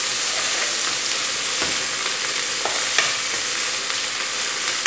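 Grated carrot sizzling in hot oil in an aluminium pan while a spoon stirs it, scraping and knocking against the pan a few times.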